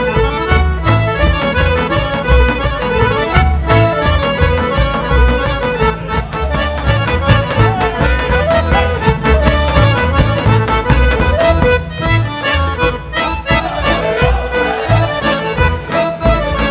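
Live folk orchestra led by accordion playing a lively Serbian folk dance tune for a circle dance, with an ornamented melody over a steady low beat.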